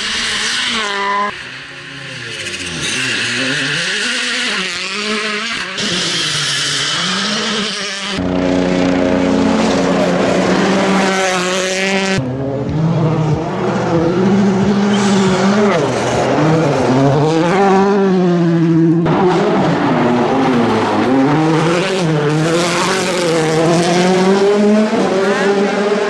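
World Rally Cars' 1.6-litre turbocharged four-cylinder engines revving hard as the cars pass one after another, the note rising and falling through gear changes and lifts. The sound switches abruptly from one car to the next several times.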